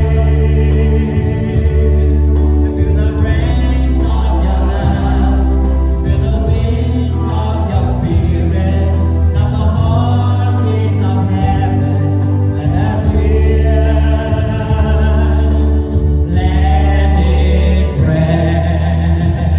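Worship music: a group of voices singing a gospel-style praise song over a band, with held bass notes that change every few seconds.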